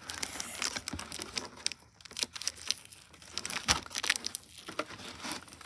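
Packing tape and cardboard packaging being pulled and torn by hand: irregular crackling, crinkling and tearing.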